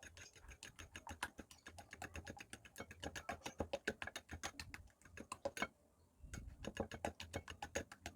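Two eggs being beaten in a bowl: a utensil clicking rapidly against the bowl's side, about five or six clicks a second, with a brief pause about six seconds in.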